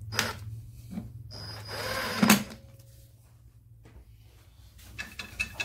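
Cordless impact gun winding in the grub screw that holds a brake drum: a couple of short blips, then it runs for about a second with a high whine and ends in a sharp knock as the screw seats. A few light handling clicks follow near the end.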